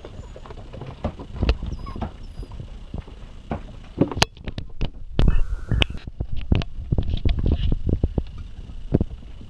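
A dog moving about, with many irregular knocks and thumps and a few faint short whimpers in the first couple of seconds.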